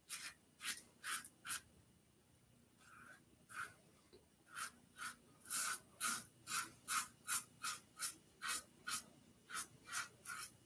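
Stirling Stainless double-edge safety razor scraping through lathered stubble on the cheek in short strokes, about three a second, with a pause after the first five. This is the third pass, across the grain, with the razor moving more easily as the face gets smoother.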